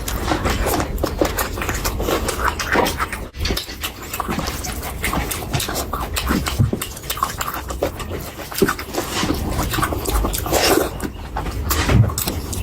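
Close-miked eating sounds of someone eating curry: continuous chewing, lip-smacking and wet mouth clicks with heavy breathing between bites.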